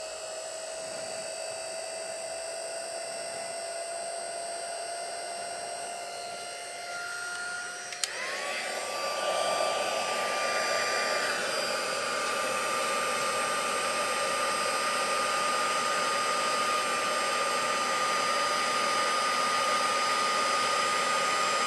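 Embossing heat tool running with a steady whine and rush of air, warming up and then melting clear embossing powder. About eight seconds in there is a click and the whine jumps higher and louder.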